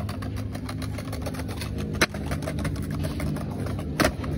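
Skateboard wheels rolling over paving tiles: a steady low rumble with faint ticks, broken twice by a sharp clack about two seconds apart.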